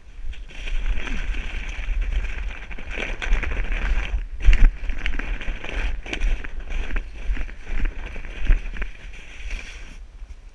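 Plastic sled sliding over snow, a continuous scraping hiss with a few sharp knocks from bumps, the strongest about halfway through. Low wind rumble buffets the microphone.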